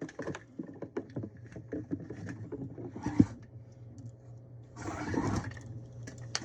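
Window blinds being handled and adjusted: a string of small clicks and rattles, a sharp knock about three seconds in, and a brushing rustle near the end.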